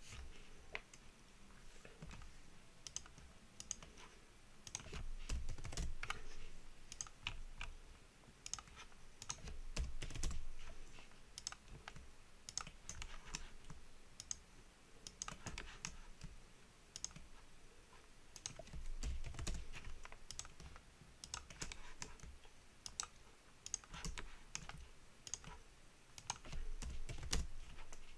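Computer keyboard keys and mouse clicks, irregular and fairly quiet, from shortcuts and selections made while editing a 3D model, with a few low rumbling swells in between.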